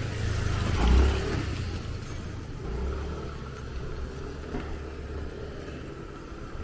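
A motor vehicle going by on a rainy street, loudest about a second in, with a lower rumble returning for a couple of seconds midway.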